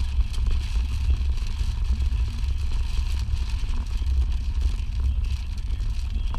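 Car cabin noise while driving on a gravel road: a steady low rumble of engine and road with tyre hiss and a few faint ticks.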